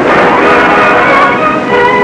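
Background film-score music with held notes, no speech over it.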